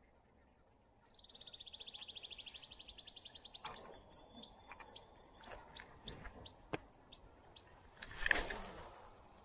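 A spinning rod cast: a sharp swish with line rushing off the reel about eight seconds in, the loudest sound. Before it, a fast, even high clicking trill lasting a couple of seconds, then scattered short high chirps and a few small ticks.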